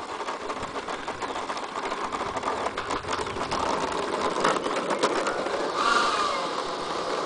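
Electric ducted fan of a model L-39 Albatros jet running as it taxis, growing louder as it approaches; about six seconds in, as it passes close, the fan's pitch wavers and it turns hissier.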